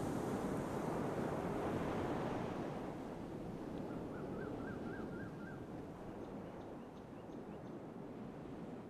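Sea surf and wind, a steady rushing noise that is strongest in the first two seconds or so and then eases off. A short run of faint chirps comes about four seconds in.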